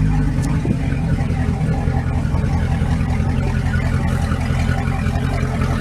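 Regal 2665 cruiser's stern-drive engine idling steadily just after starting. The boat is out of the water, so the engine sounds louder than normal.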